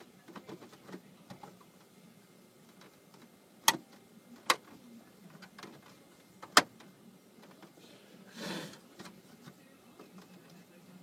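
Three sharp plastic clicks as a new four-wheel-drive selector switch is pushed and snapped into the dash, followed near the end by a short rustle of handling.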